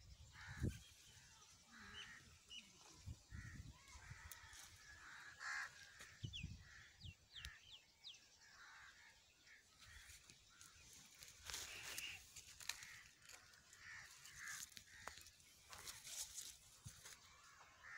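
Faint outdoor ambience: birds calling in the distance, with a few quick high chirps about seven seconds in and a few low thumps.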